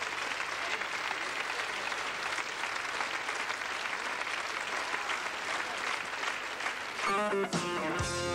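Concert audience applauding steadily. About seven seconds in, the band's music starts up over the tail of the applause.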